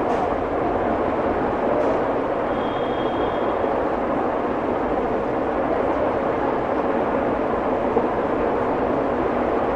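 Steady rushing background noise with no speech, and a brief faint high whistle about two and a half seconds in.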